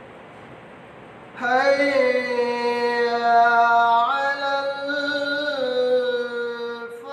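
A man's voice chanting long, drawn-out notes. It comes in after about a second and a half of faint hiss, steps up in pitch about four seconds in, and falls back a second and a half later.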